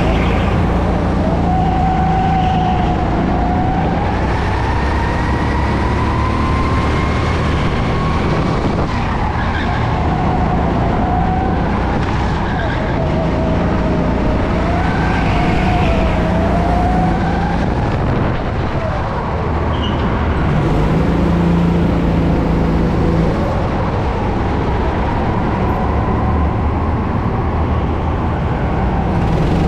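Go-kart engine running hard during a race, its note rising and falling continuously as the kart accelerates and slows through the corners.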